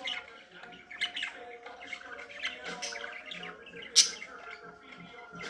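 Pet budgerigars chattering and warbling, a jumble of short chirps, with one loud sharp chirp about four seconds in.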